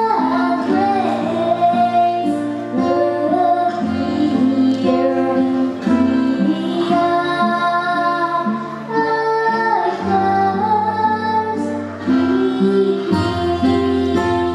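A female voice singing a melody over a plucked guitar accompaniment.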